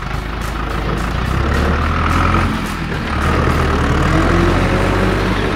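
Truck engine running, a steady low rumble that dips briefly about two and a half seconds in.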